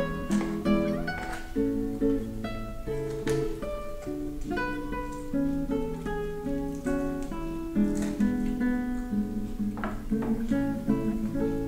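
Background music: an acoustic guitar picking a melody of short notes.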